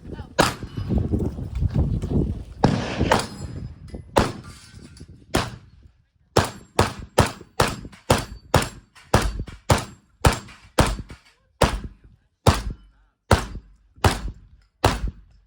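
Semi-automatic 12-gauge shotgun firing on a competition stage: a few spaced shots at first, then a fast, even string of about seventeen shots at roughly two a second.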